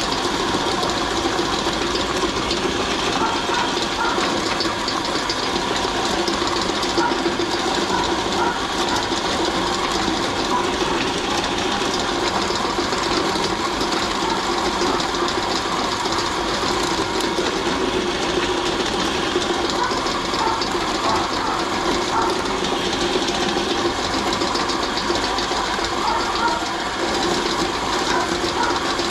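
Homemade motor-driven meat grinder running steadily while it grinds raw chicken with the bones. The owner calls the motor weak, so it grinds slowly.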